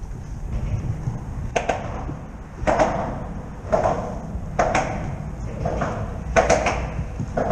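Choppy water slapping against the hull of a fishing kayak in sharp knocks, about one a second, each with a short splashy tail, over a steady low rumble of wind on the microphone.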